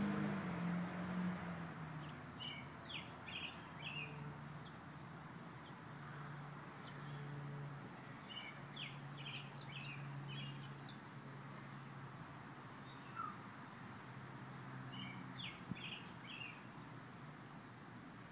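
A bird chirping in short quick phrases of a few high notes, three phrases several seconds apart. A faint low steady hum runs underneath.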